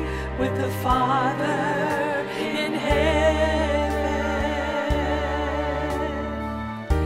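A slow Christian song: a voice holds long notes with vibrato over sustained bass notes that change every second or two.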